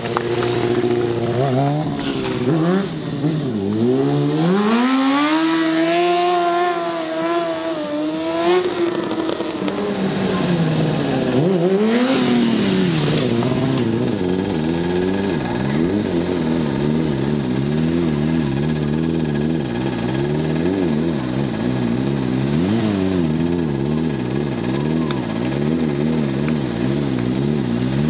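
Sport bike engine revving under a stunt rider's throttle. Its pitch sweeps up and falls back over several seconds, then swings up and down about once a second as the revs are worked to hold the bike on one wheel.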